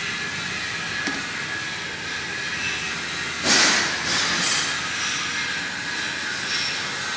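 Steady hissing, rushing noise, with a sudden loud hiss about three and a half seconds in and two shorter ones just after.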